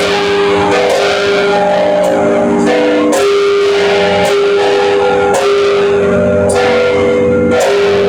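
Church bells of St John's Co-Cathedral ringing together, five bells of different pitch struck in an uneven pattern. Each stroke rings on into the next, building a steady, loud ringing.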